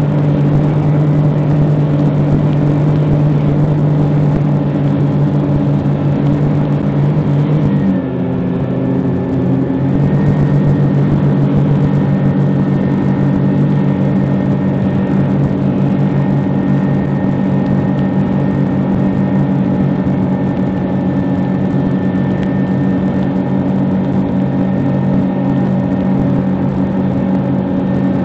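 A RIB's engine running under way with a steady drone, over a constant rush of wind on the phone's microphone. About eight seconds in, the engine note shifts and then settles a little higher.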